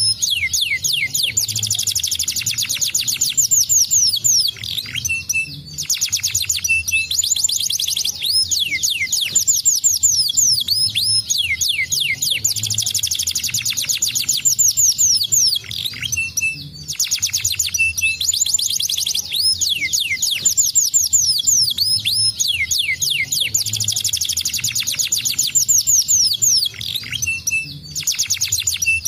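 Domestic canary singing: long runs of fast rolling trills, each a quick series of sweeping high notes, broken by short pauses every few seconds.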